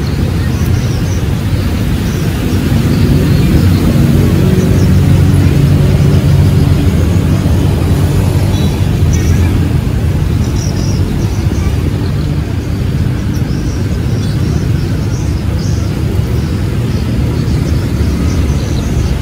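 Loud road traffic rumble from vehicle engines passing close by. One engine's low drone swells a few seconds in and eases off after about ten seconds.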